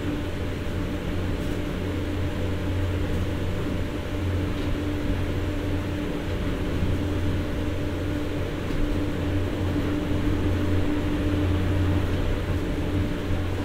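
Diesel generator set aboard a Philippine National Railways 203-series car running steadily with the train at a standstill: a constant drone with a low hum and a higher steady tone.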